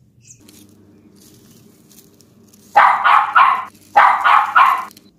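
A dog barking in two quick runs of three barks each, the second run starting about a second after the first.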